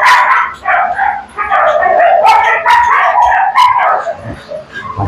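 A dog yelping and whining in repeated high-pitched cries with short gaps, growing fainter near the end.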